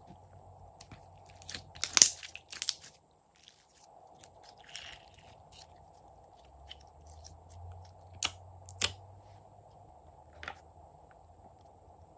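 Glossy slime being squeezed and stretched by hand, giving a few sharp pops and crackles. A cluster comes about two seconds in and is the loudest, with single pops later on.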